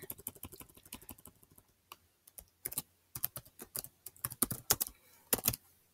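Computer keyboard typing. A quick run of soft key taps lasts about a second and a half, then comes a short pause, then louder, separate keystrokes type out words.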